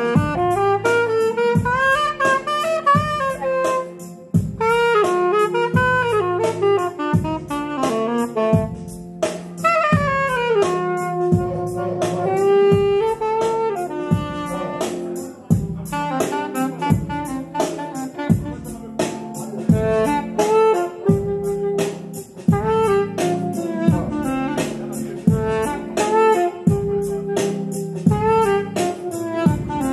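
Saxophone playing a melodic line with runs and slides and a long held note midway, over a steady beat from the band.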